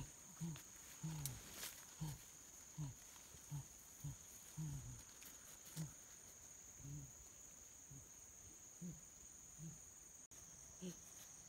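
Steady high-pitched drone of insects such as crickets or cicadas, with a short, low call that falls in pitch repeating about once or twice a second, then growing sparser and fainter.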